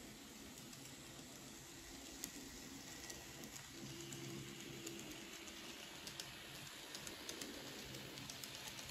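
Model train running on the layout track: a faint, steady hum of its small electric motor with light, irregular clicks of the wheels over rail joints, over a low hiss.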